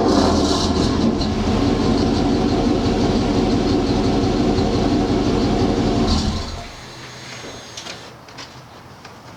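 Vortec 5.7 L (350) V8 of a 1999 Chevy Tahoe running steadily through a catless Y-pipe and a Flowmaster Super 44 muffler, a loud low exhaust note. It cuts off about six seconds in, leaving a few faint clicks.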